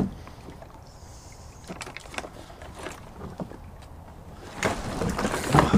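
Light knocks and scrapes against a plastic sit-on-top fishing kayak, then, about four and a half seconds in, a louder stretch of water sloshing and splashing as a person climbs out of the kayak into shallow water.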